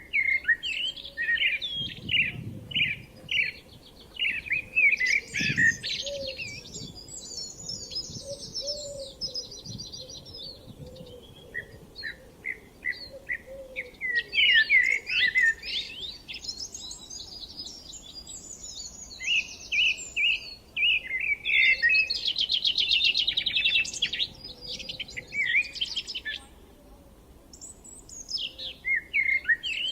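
Songbirds singing: quick repeated chirping phrases and whistles, with a fast trill about three quarters of the way in.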